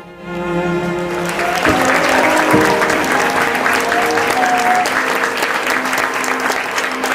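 Wedding guests applauding, the clapping swelling up over the first second or so, over background music with sustained instrumental notes.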